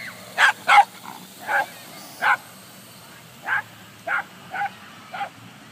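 Small terrier barking excitedly while it chases a quadcopter drone, about eight short barks at an uneven pace.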